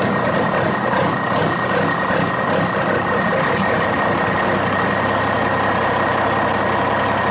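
Small electric toy motor of a homemade matchbox road roller running steadily: a whirring hum with a steady high whine, and faint regular ticking for the first few seconds.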